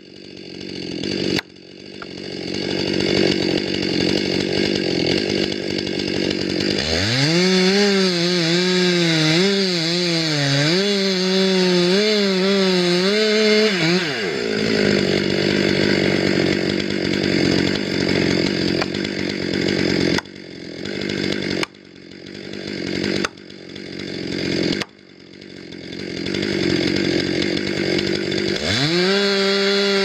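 Engine-driven wood-cutting machinery running hard, its engine note rising and wavering as it works through wood, then settling back. The sound breaks off abruptly and picks up again several times.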